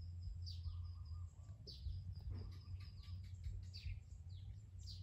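Small birds chirping, with repeated short calls sweeping down in pitch, over a steady low rumble. A thin, high, even trill runs through the first second and a half.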